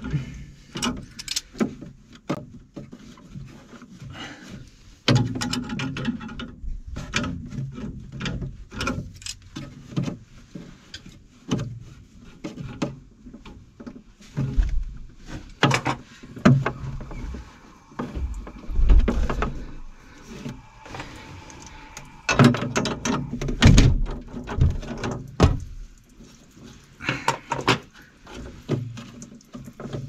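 Hands and tools working at the top of a small electric water heater's pipe and electrical connections: scattered clicks, knocks and rattles of metal and plastic, with a few heavier thumps in the second half.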